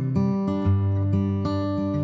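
Background music on acoustic guitar, strummed and plucked chords that change every half second or so.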